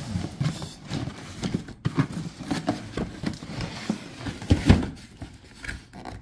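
Cardboard toy box being handled and turned over: irregular light knocks and bumps, with one louder thump about four and a half seconds in.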